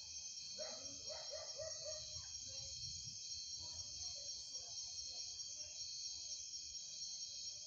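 A steady, high-pitched chorus of night insects, with a short run of lower repeated calls about a second in.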